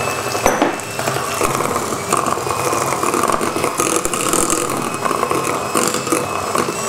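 Kenwood kMix electric hand mixer running steadily, its twin beaters whisking an egg into creamed butter and sugar in a glass bowl, with occasional knocks of the beaters against the glass.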